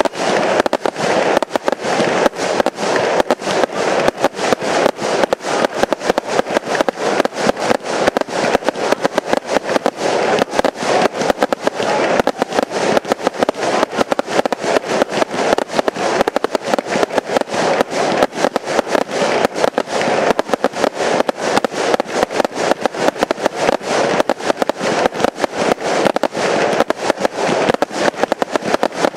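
Aerial firework batteries firing in a continuous barrage: sharp launches and bursting bangs, several a second, with no break.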